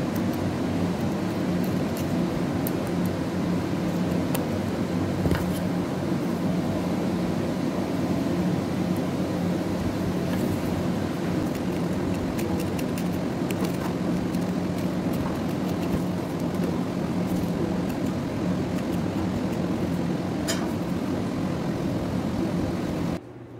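A steady low machine hum, with a few faint clicks as a knife slits chilies open. The hum cuts off suddenly near the end.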